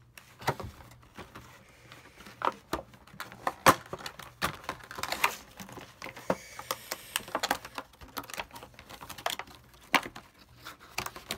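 Stiff plastic clamshell packaging being cut with scissors and handled: irregular clicks, snips and crinkles, with a short scraping hiss about six to seven seconds in.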